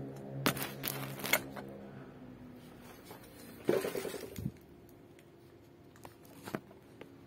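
Light metallic clicks and taps from a bare two-stroke cylinder block being handled, with a short scrape about halfway through and two more taps near the end.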